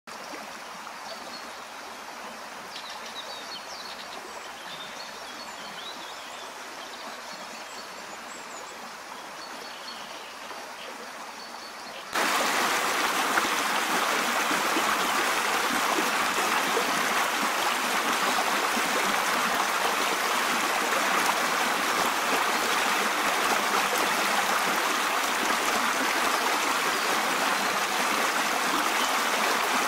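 Spring floodwater from a karst underground river that has come to the surface. First a quiet trickle of water with a few faint high chirps, then, about twelve seconds in, an abrupt switch to the loud, steady rush of fast water over stones.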